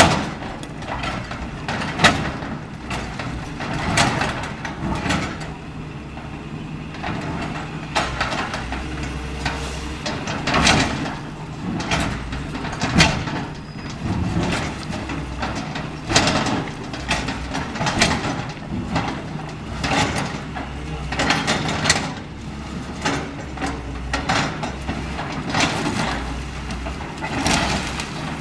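Caterpillar 325L hydraulic excavator's diesel engine running under load while it tears into a building, with irregular crashes and knocks of demolition debris every second or two.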